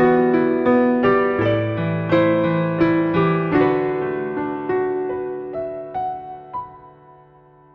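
Background piano music: a gentle melody of struck notes over held bass notes that slows and fades away near the end.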